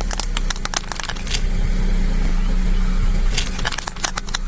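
Car running steadily, with dense crackling and clicking for about the first second and a half and again near the end.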